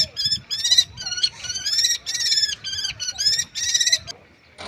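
Common kestrel calling in a rapid series of about ten high, harsh notes, stopping about four seconds in.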